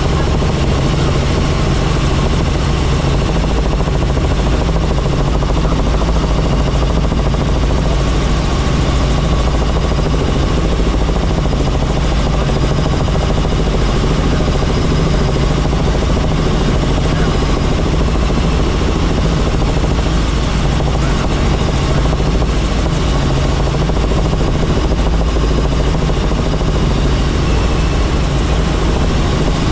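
Helicopter engine and rotor noise, loud and steady, with a strong low drone and no change in pitch or level.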